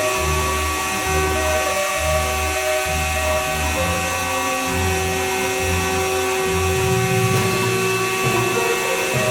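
CNC router spindle running at high speed with a steady whine, over background music with a low bass line.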